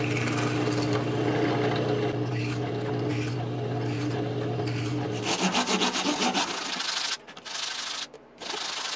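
A drill press motor runs with a steady hum while its bit bores through the centre of a plywood disc. About five seconds in the hum stops, and quick scratchy rubbing strokes of wood on sandpaper follow, with short pauses near the end.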